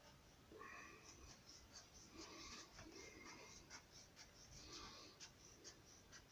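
Faint scratching and rubbing with scattered small clicks, from hand work on a shoe being repaired.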